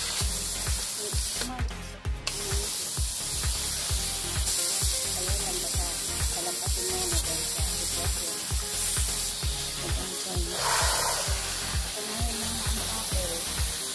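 Background music with a steady beat, over the hiss of a garden hose spraying water on a dog's coat.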